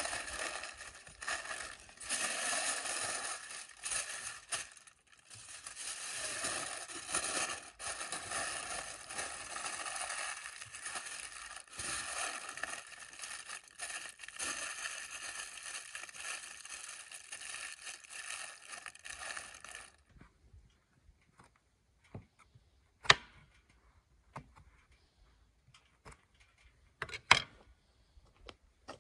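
Aluminium foil crinkling and crumpling as it is folded and pressed around a goose, a dense crackling for about twenty seconds. It then stops, and a few sharp knocks follow in the quiet, two of them loud near the end.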